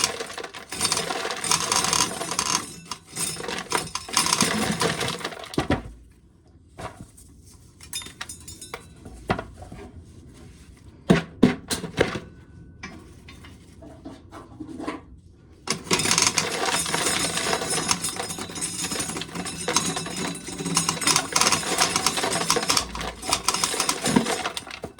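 Dried corn kernels being shelled off the cob and rattling down into a pail. There is a dense stretch of rattling for about the first six seconds and another over the last nine, with scattered single kernels clicking between them.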